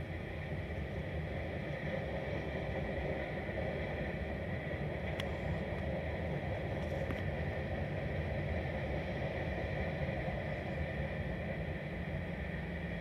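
Freight train cars, tank cars and boxcars, rolling past on the track: the steady noise of steel wheels on rail, even throughout.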